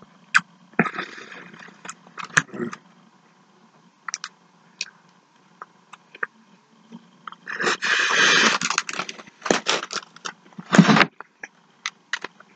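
A person biting into and chewing a fast-food sandwich close to the microphone: wet mouth clicks and smacks scattered throughout, with a few louder noisy bursts, the longest about eight seconds in and another near the end.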